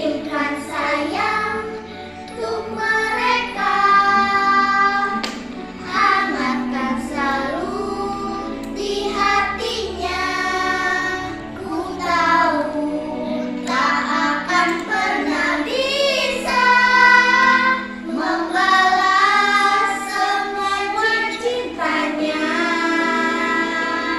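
A child singing a song with musical accompaniment, in phrases a few seconds long.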